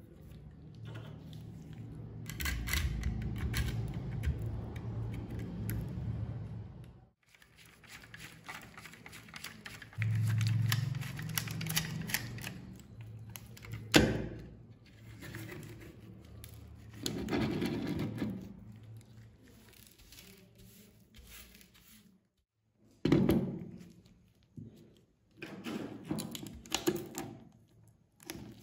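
Gloved hands handling and prying apart a mud-caked scale model car: rubbing, scraping and crackling of dried mud and parts, with one sharp loud snap about halfway through as the body comes off the chassis. Shorter spells of scraping and a few clicks and knocks follow.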